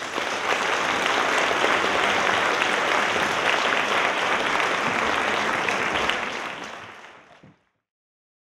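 Audience applauding, a dense steady clapping that fades out about seven seconds in.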